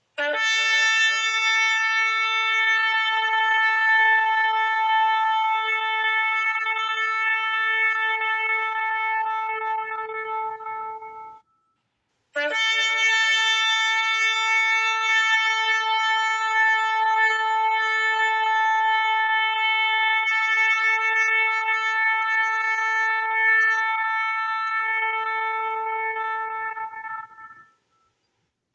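Shofar (ram's horn) sounding two long held blasts, one about eleven seconds and one about fifteen, separated by a short break. Each opens with a brief lower note that jumps up to a steady, bright, brassy tone, which tapers off at its end.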